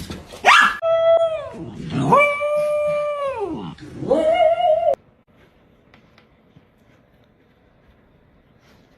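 A dog howling: a short rising yelp, then three long drawn-out howls, each dropping in pitch at its end. The sound cuts off suddenly about five seconds in.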